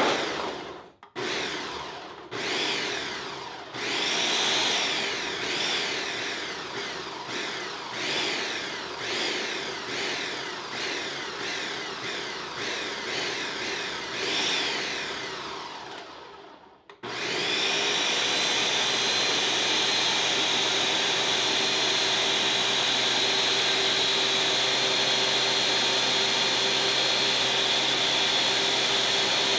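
1500-watt Ninja Mega Kitchen System blender motor pulsing a pitcher of raw vegetables and ice in a rapid series of short bursts, each spinning up and dropping back, to get the ingredients going. A little past halfway it switches to running steadily without a break as it purées them into juice.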